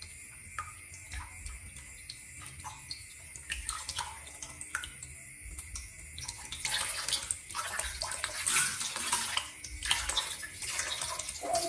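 Water splashing and dripping into a wash basin, then water poured from a plastic bowl over a baby monkey during its bath. The pouring gets louder and runs on from about six seconds in.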